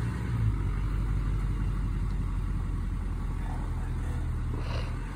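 Engine of the shed-delivery rig idling steadily, a low even hum.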